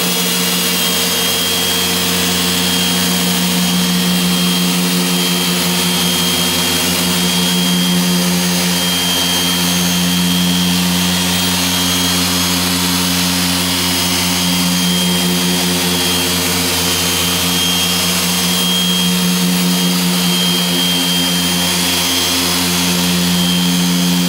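Griot's Garage 6-inch dual-action orbital polisher running at a high speed setting (about 5 to 6), its foam pad buffing compound into the painted bumper of a Nissan 370Z. It makes a steady motor hum with a thin high whine, and the pitch wavers slightly now and then.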